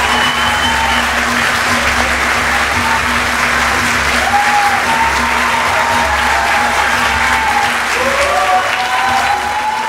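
Audience applauding, with music playing underneath.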